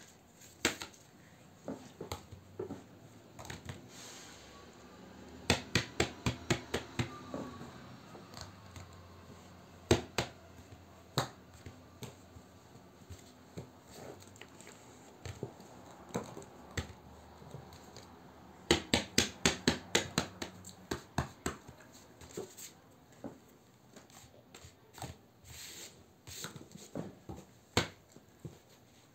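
Hands handling plastic slime tubs and slime on a paper sheet: two runs of quick sharp clicks and pops, four to five a second for a couple of seconds each, with scattered single taps between.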